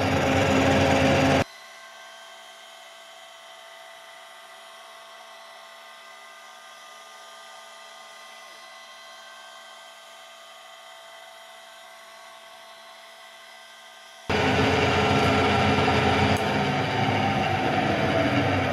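Kearney & Trecker rotary head milling machine running and taking a very light cut on the outside of a driveshaft yoke turned on a rotary axis, a dense, high machine noise. About a second and a half in it drops abruptly to a much quieter steady hum with a few constant tones, and returns just as suddenly about four seconds before the end.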